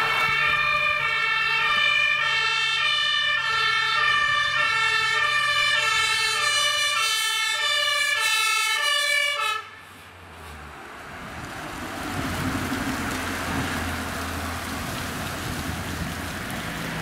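Fire engine's two-tone siren, alternating steadily between a high and a low tone, under the truck's engine. The siren cuts off suddenly about ten seconds in, leaving the truck's engine and tyre noise as it drives past.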